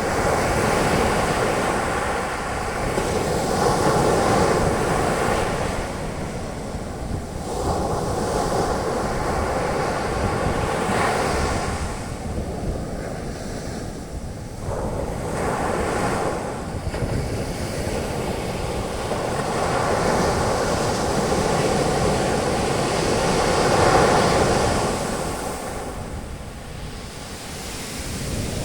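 Ocean waves breaking and washing up the beach as foaming surf, the rushing noise swelling and fading every few seconds. Wind buffets the microphone throughout.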